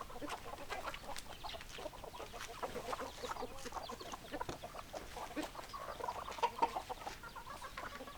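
Flock of hens clucking: many short calls overlapping from several birds at once.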